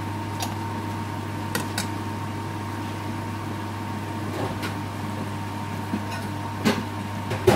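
A steady low machine hum with a few light metallic clinks of a steel spoon against a steel wok; the loudest two come near the end.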